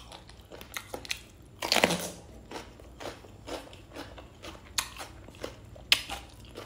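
Close-up crunchy biting into a raw red pepper, then chewing, with many small wet clicks and smacks of the mouth.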